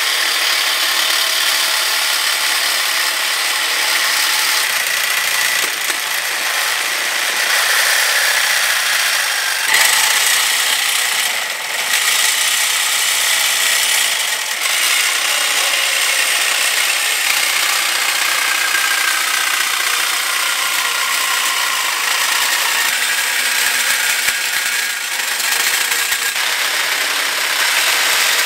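DeWalt corded reciprocating saw cutting through a chromoly steel bike frame's tubes, the blade running steadily against the metal. The cutting eases briefly about twelve seconds in and again around twenty-five seconds.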